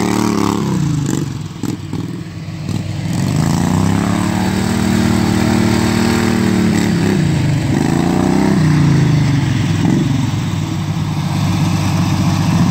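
Riding lawn mower's small engine running at high revs. The pitch falls about a second in, climbs back around four seconds, dips briefly near seven and a half seconds and rises again.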